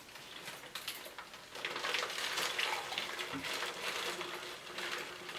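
Plastic turkey wrapping crinkling and rustling in irregular crackles as gloved hands peel it off a raw, still-wet whole turkey in a sink.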